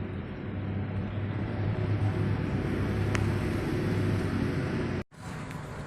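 Motor vehicle traffic on the highway above the river: a low, steady engine hum that grows louder through the middle, then cuts off abruptly about five seconds in.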